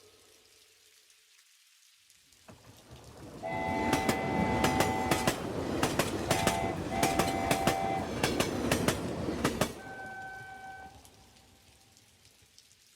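A train passing close by, its wheels clattering rhythmically over the rail joints, with a multi-tone horn sounding three blasts: a long one, a short one, then a medium one. It starts about three seconds in, cuts off abruptly near the end, and dies away to faint rain.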